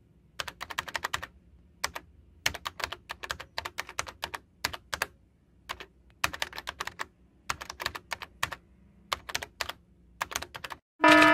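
Computer keyboard keys clicking in quick irregular runs with short pauses, as text is typed out letter by letter. Near the end a loud electronic beep begins.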